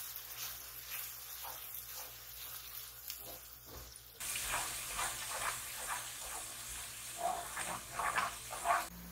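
Food sizzling in a cooking pot, with a few short knocks and scrapes. About four seconds in the sizzle jumps louder, and a quick run of clattering strokes follows.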